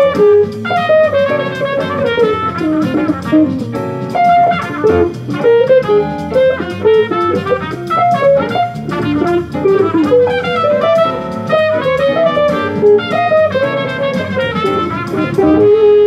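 Gibson Les Paul electric guitar playing fast single-note bebop jazz lines, ending on a held note.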